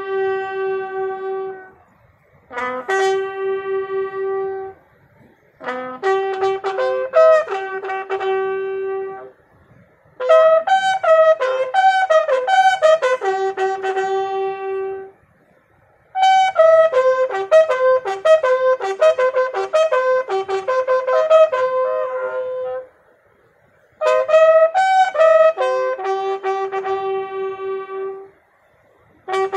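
Army bugle sounding the final salute for a fallen soldier: a call in six phrases of clear, held notes, each phrase ending on a long low note, with pauses of about a second between them.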